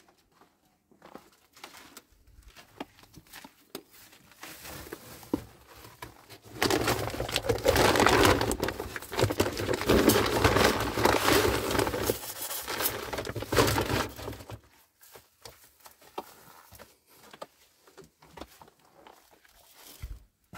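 Plastic bag crinkling and rustling as it is handled, continuous for about eight seconds in the middle, with scattered small knocks and taps before and after.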